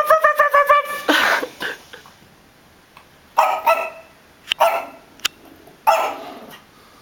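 Puppy barking in anger: a rapid stuttering string of yaps in the first second, then single sharp barks every second or so, with a short click between the last two.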